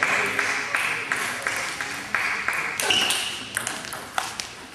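Table tennis rally: the celluloid ball clicking off the bats and the table in an even rhythm, about three hits a second.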